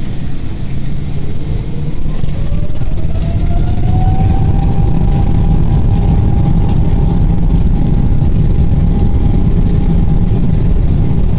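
Boeing 777-200ER jet engines heard from inside the cabin beside the wing: a deep rumble with a whine that rises in pitch and loudness over the first few seconds, then holds steady. The engines are spooling up for takeoff.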